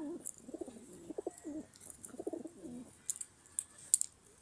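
Pigeons cooing in several low, wavering phrases through the first three seconds, followed by a few sharp clicks near the end.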